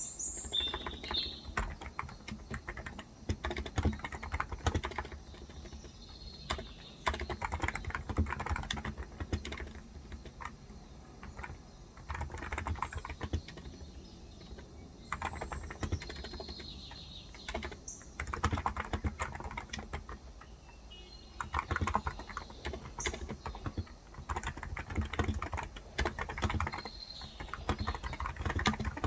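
Typing on a Cox Endeavour electrostatic capacitive keyboard with 35 g keys, in bursts of fast keystrokes broken by short pauses. Birds chirp briefly now and then in the background.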